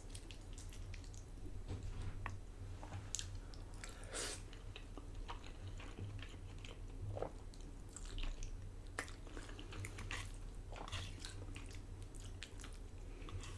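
A person chewing food close to the microphone, with scattered small wet mouth clicks and smacks, over a steady low hum.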